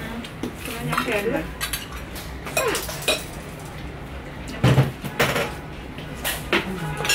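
Metal spoons clinking and scraping against ceramic plates and bowls while people eat, in scattered irregular clinks, with one louder knock about two-thirds of the way in.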